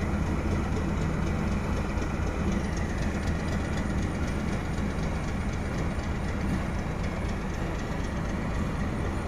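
Diesel-electric D12E locomotive pushing at the rear of a freight train, its engine running steadily under load as the train climbs uphill into a tunnel.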